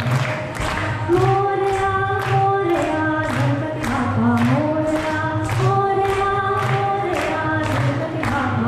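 A woman sings a held melody that glides between notes through a microphone and PA, over a steady, sharp beat of about three strikes a second.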